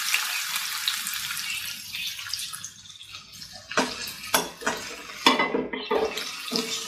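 Chopped onion and garlic sizzling in hot oil in a nonstick pan, the sizzle fading over the first few seconds. From about four seconds in, a silicone spatula stirs them with about half a dozen short scrapes against the pan.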